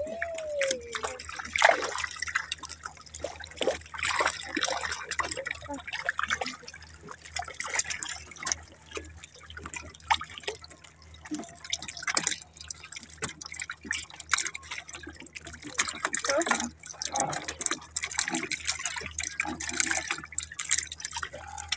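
Water dripping and splashing irregularly, with small patters and clicks, as a multi-hook hand line with small fish on it is hauled into an outrigger boat and the fish are pulled off the hooks.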